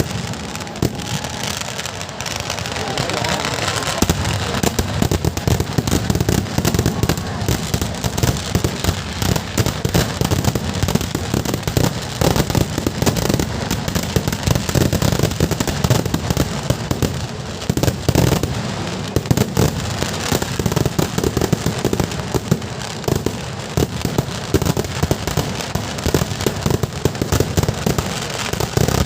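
Kerala vedikkettu fireworks barrage: a dense, unbroken string of rapid explosions, many bangs a second, without a pause.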